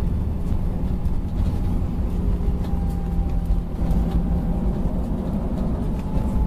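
Airliner cabin noise during the landing roll just after touchdown: a steady low rumble of the wheels on the runway and the engines as the jet slows with its spoilers raised.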